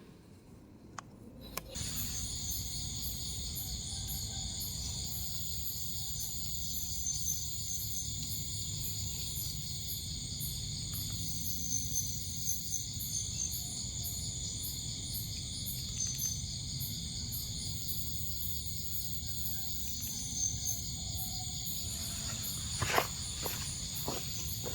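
Night insect chorus: crickets and other insects trilling steadily, with a high chirp pulsing about twice a second. A few short knocks come near the end.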